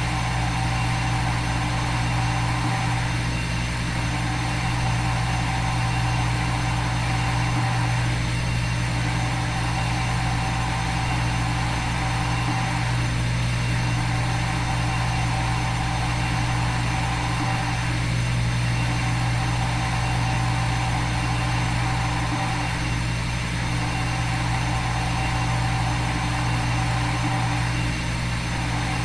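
Simulated CNC milling machine sound: a steady spindle-and-cutting hum that repeats in a loop about every five seconds.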